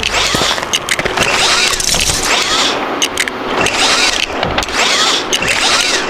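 Cartoon machinery sound effects for a toy construction crane at work: a hissing rhythm that repeats about once a second, with scattered clicks and short sliding tones.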